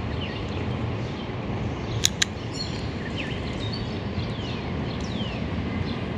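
Outdoor ambience with birds calling: several short whistled notes sliding down in pitch, over a steady low background hum. Two sharp clicks come close together about two seconds in.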